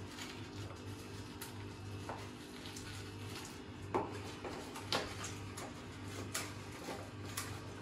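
Small kitchen containers handled at the counter: a few sharp taps and clicks in the second half, with a faint steady hum underneath.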